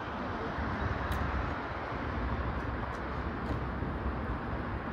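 Steady outdoor background noise: a low rumble and hiss of distant city traffic, with no clear single event.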